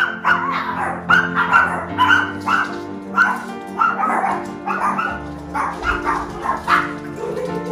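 Several small dogs barking and yapping repeatedly in high-pitched bursts, excited at their owner coming home, over background music with steady sustained tones.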